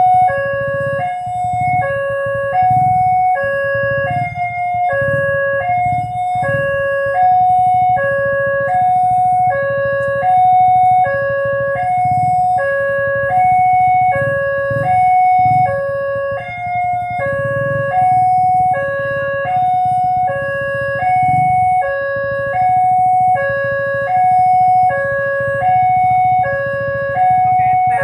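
Railway level-crossing warning alarm sounding a two-tone high-low chime, repeated over and over, with a low rumble underneath: the signal that a train is approaching the crossing.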